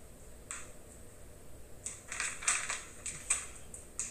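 Quick clicks and clinks of kitchen dishes and utensils handled on a counter, thin and tinny as if played through a phone's speaker. There is a single click about half a second in and a busy cluster of clatter in the second half.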